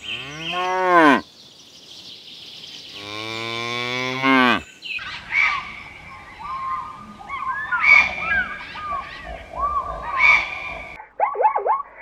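Cattle mooing twice: a call about a second long at the start, then a longer moo about three seconds in that drops in pitch at its end. These are followed by a run of short, high chirping calls.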